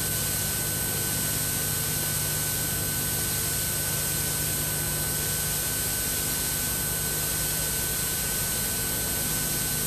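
Steady hiss with a low hum and faint steady tones and no distinct events: the background noise of an old videotape soundtrack between narrated lines.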